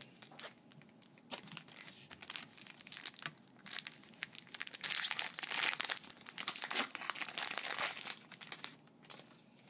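Foil Pokémon card booster pack being torn open and its wrapper crinkling as the cards are pulled out, a run of quick irregular crackles that grows densest in the second half.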